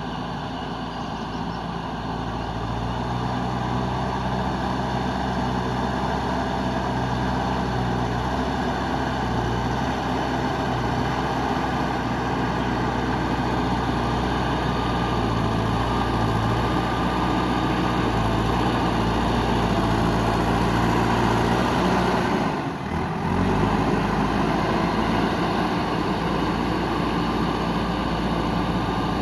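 Diesel engine of a JCB 3DX backhoe loader running steadily as the machine works, growing louder over the first few seconds, with a brief drop about three-quarters of the way through.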